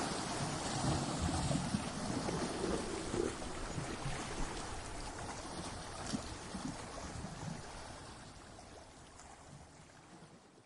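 Ocean surf washing over rocks, a rushing, fizzing wash of water that slowly fades away over the last few seconds.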